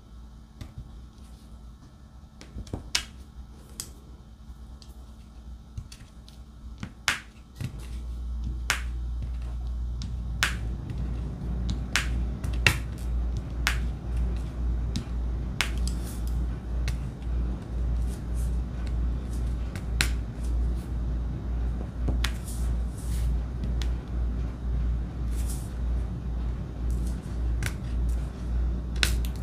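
Sharp, irregular clicks of a diamond-painting drill pen setting resin diamonds onto the adhesive canvas. About eight seconds in, a low hum starts and pulses evenly about twice a second.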